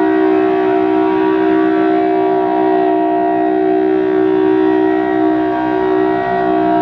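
Federal Signal Thunderbolt 1000T civil defense siren sounding its full alert: a loud, steady, held chord from the blower-fed rotating chopper, with no rise or fall in pitch. The chopper sounds worse than ever.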